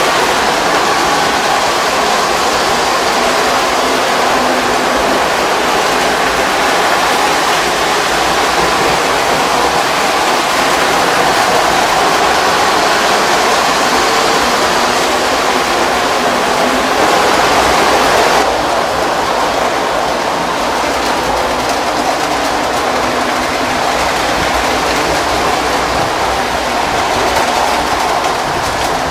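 Postwar Lionel O-gauge trains running close past on three-rail tinplate track: a steady rumbling whir of electric motors and metal wheels. It turns a little quieter and duller about two-thirds of the way through.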